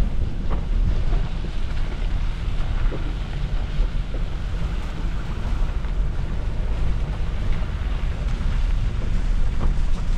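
Wind buffeting the microphone: a steady, loud low rumble with a few faint knocks.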